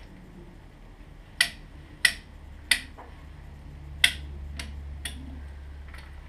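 Sharp metallic clicks from hand tools being worked at the front fork and axle of a race motorcycle during a front wheel change. There are about seven clicks, irregularly spaced about half a second to a second apart, and the early ones are the loudest. A low steady hum sits underneath.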